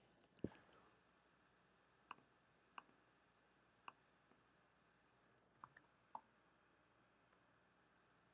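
Near silence broken by about six faint, separate clicks of a computer mouse, spaced irregularly about a second apart.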